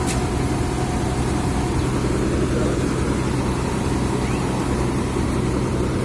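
Idling vehicle engine, a steady low hum, with one short sharp click right at the start.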